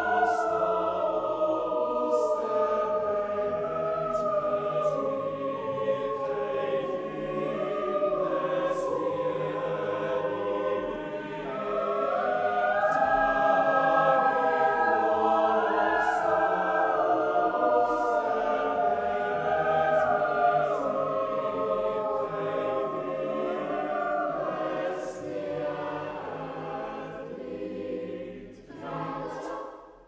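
A boys' choir singing a traditional Swiss folk song in several parts, with trebles and older boys' lower voices together. The singing swells louder about twelve seconds in, softens later, and the final phrase ends just before the close.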